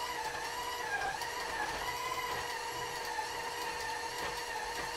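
Steady machine hum made of several faint, slowly wavering tones, with a few soft clicks.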